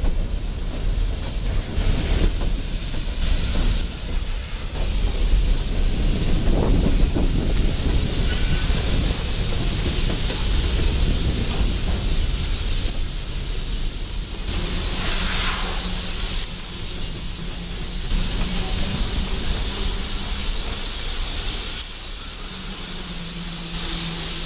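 A Norfolk Southern freight train's air brakes in an emergency application: a loud, steady hiss of air venting from the brake line, which the railfan puts down to a broken air hose between cars. Under it is the rumble of the hopper cars rolling on the rails, and a steady low tone joins in during the second half.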